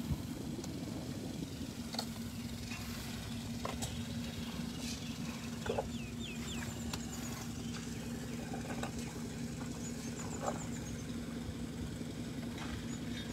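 Steady low hum of an idling vehicle engine, with a few short bird chirps and scattered soft crunches as Asian elephants chew fresh pumpkins.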